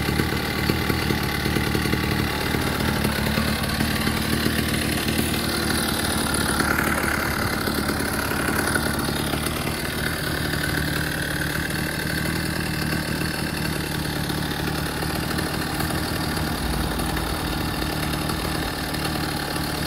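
Small petrol engine of a wooden motorized bicycle running steadily at idle.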